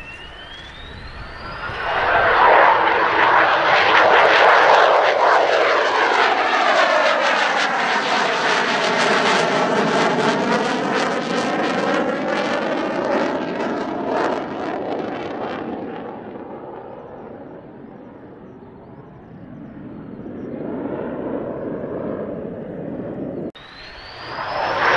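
Mitsubishi F-2 fighter's F110 turbofan jet engine passing low on a low approach. A whine rises in pitch, then loud jet noise builds with a sweeping, phasing hiss as the jet goes by, and slowly fades. Near the end a second loud jet pass cuts in abruptly.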